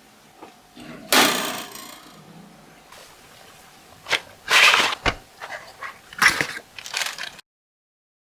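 Handling noises: a few bursts of rustling and clatter, the loudest about a second in and around four to five seconds in, then the sound cuts off suddenly.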